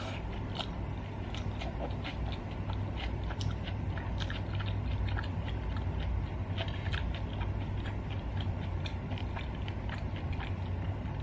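Close-miked chewing of cumin-roasted lamb: many small, irregular wet clicks of the mouth working the meat. A steady low hum runs underneath.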